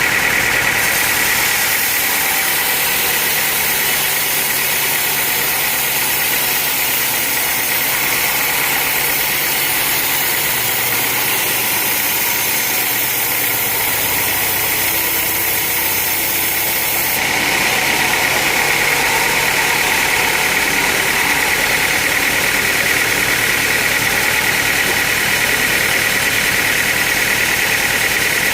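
Engine-driven sawmill machinery running steadily at a loud level, with a constant high whine; the sound shifts about seventeen seconds in, the high hiss dropping and the whine growing stronger.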